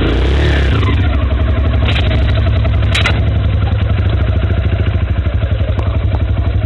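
Kawasaki KLX140L dirt bike's 144cc single-cylinder four-stroke engine running at low revs with an even throb, with two sharp clicks about two and three seconds in.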